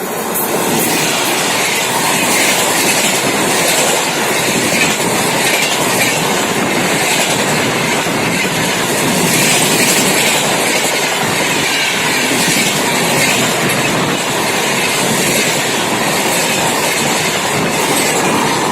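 An Indian Railways express passenger train passing close at speed, with a steady loud rush of steel wheels running on the rails that dies away once the train has gone.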